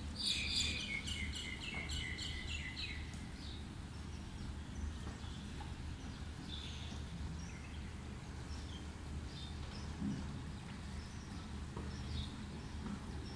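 Birds chirping outdoors over a steady low background rumble. In the first couple of seconds a quick run of chirps steps down in pitch, and scattered faint chirps follow.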